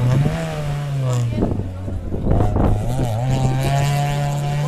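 Volkswagen Golf Mk3 rally car going by at speed. Its engine note drops in steps as it slows and shifts down, with a few short sharp noises around the middle, then rises again and holds as it pulls away.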